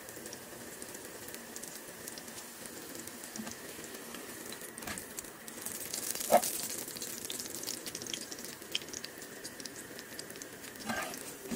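Leftover roti frying in ghee on a tawa, sizzling steadily and swelling for a couple of seconds midway. A few sharp clicks of a metal spatula against the pan, the loudest about six seconds in.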